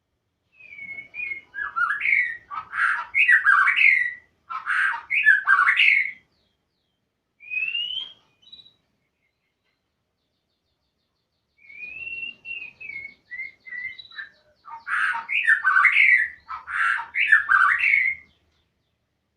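A murai (Copsychus songbird, shama or magpie-robin) singing hard in two loud bursts of rapid, varied whistled phrases, separated by a single short rising whistle and a pause of a few seconds.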